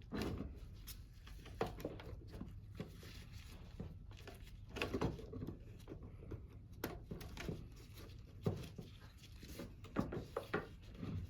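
Irregular clicks and light knocks of parts being handled and fitted together as a circuit board is slotted back into the pump unit's cover.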